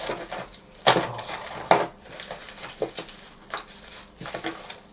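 A box of small electronic parts being rummaged through by hand: clattering and clicking, with two sharper knocks a little under one and two seconds in.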